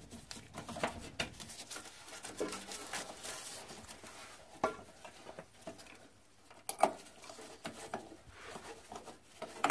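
Gloved hands handling a fuel filter and its steel fuel-line quick-connect fitting: rustling with scattered small clicks and taps of metal parts, and a sharper click near the end as the fitting snaps onto the filter.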